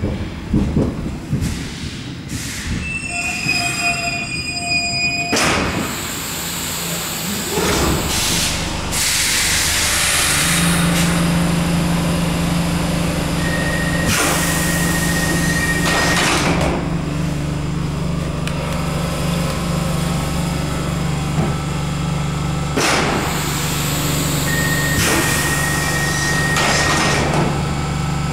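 Older Stockholm metro C6 car heard from inside as it draws into a station and stands: a brief wheel squeal a few seconds in, a loud hiss of air, then a steady low hum while it stands, with two noisy stretches of door movement, each with a short high tone.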